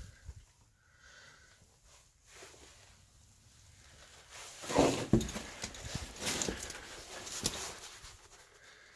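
Footsteps on the loose rocks and pebbles of a cave floor: quiet at first, then about halfway through a couple of sharp knocks of stone underfoot, followed by irregular scuffing and crunching as the walker moves over the rubble.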